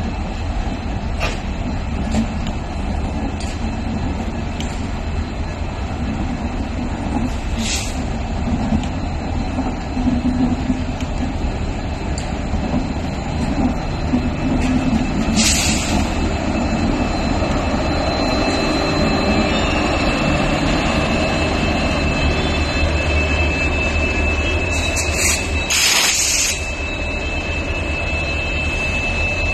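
Hamsafar Express LHB passenger coaches rolling past as the train arrives, a steady rumble of wheels on rail. Several brief sharp noises break through, the loudest near the end, and a thin steady whine comes in during the last third.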